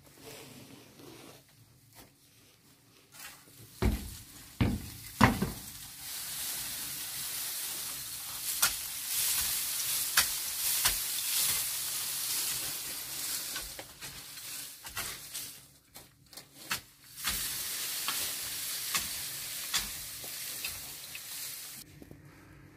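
Wood chips being scraped and pushed across a floor with a long-handled tool: a steady rustling scrape with small clicks, after three thumps about four to five seconds in. The scraping stops shortly before the end.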